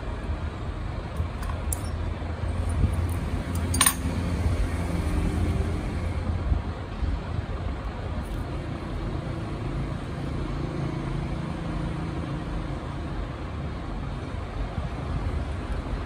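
Steady low mechanical rumble, like engines and road traffic, with one sharp click about four seconds in.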